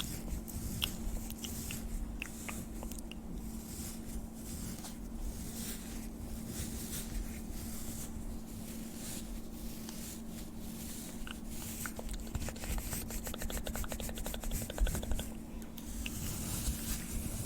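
Close-microphone ASMR trigger sounds: soft irregular clicks, crackles and rubbing, with a quick run of rapid clicks about two-thirds of the way through, over a faint steady hum.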